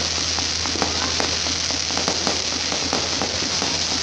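A fireworks fountain spraying sparks, with a steady hiss and a dense crackle of many small pops.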